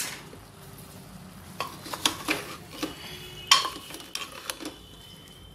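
A metal spatula scraping and knocking against the inside of an aluminium pressure cooker while stirring pumpkin pieces and brown sugar. There is one sharp knock at the start, then a run of scrapes and knocks from about a second and a half in, the loudest about three and a half seconds in.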